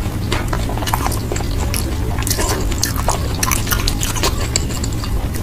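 Close-miked chewing and wet mouth sounds of a person eating: a run of small irregular clicks and crackles over a steady low hum.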